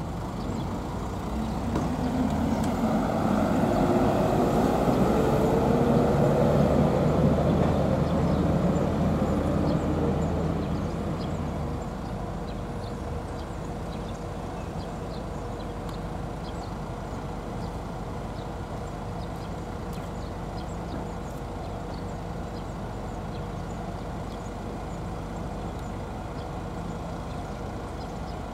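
A road vehicle's engine swells up over several seconds, its note rising in pitch, loudest from about four to ten seconds in. It then settles to a steady low engine hum that runs on.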